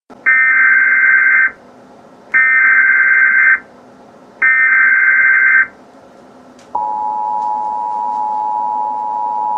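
Emergency Alert System signal: three loud bursts of warbling data tones, each about a second long (the SAME header that encodes the alert), then, about seven seconds in, the steady two-tone attention signal begins, announcing that an emergency message is about to follow. A low hiss lies underneath.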